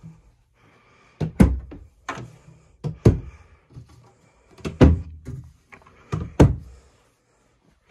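Wooden RV cabinet doors being opened and pushed shut by hand, giving a series of sharp knocks and clacks, several coming in quick pairs.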